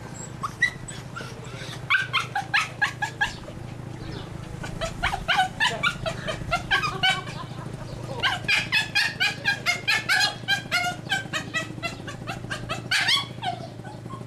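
Dog barking: runs of quick, high-pitched yaps, several a second, coming in bursts, over a steady low hum.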